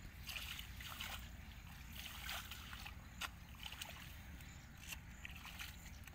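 Bare feet stepping through wet, muddy grass and shallow puddles: soft splashy squelches, roughly one a second, at an uneven pace.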